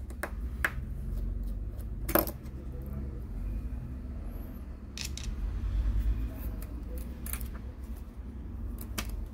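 Scattered light metallic clicks and taps of small screws and a precision screwdriver as a laptop's metal hard-drive caddy is unscrewed and lifted out, over a low steady hum. One sharper click about two seconds in is the loudest.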